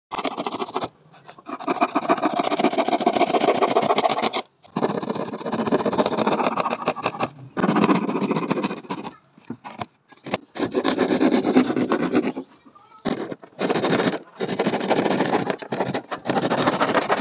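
Handsaw cutting through a thin MDF board: a rasping sound in several runs of a few seconds, with short breaks between them.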